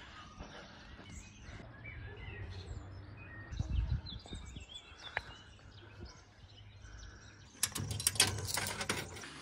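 Birds chirping faintly, then, near the end, a rapid run of sharp metallic clicks and clatter as coins are fed into a coin-operated entry machine and drop through its coin mechanism.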